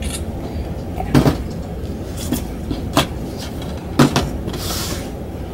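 Plastic DVD cases being handled and set down on a shelf: a few sharp clacks and knocks spaced about a second apart, then a brief scraping slide near the end, over a steady low background hum.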